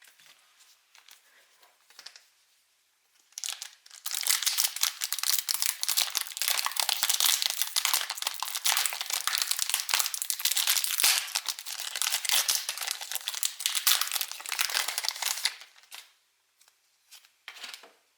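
A foil Pokémon TCG booster pack wrapper being torn open and crinkled. Dense crackling starts about three and a half seconds in and stops about sixteen seconds in, with light handling ticks before and after.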